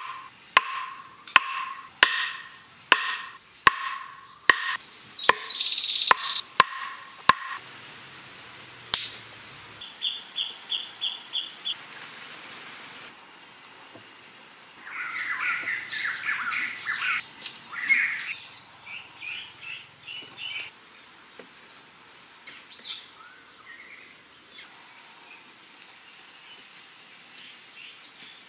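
Wooden stake being driven into the ground with a hand-held stone: about ten sharp knocks in the first seven seconds. After them, forest birds chirp and call over a steady high insect buzz.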